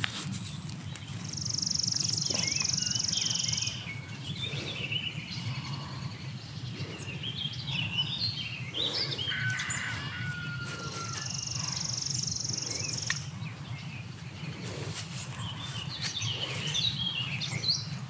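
Birdsong: a high, even trill of about two and a half seconds sounds twice, the second some nine seconds after the first, among scattered short chirps of other birds. A steady low hum runs underneath.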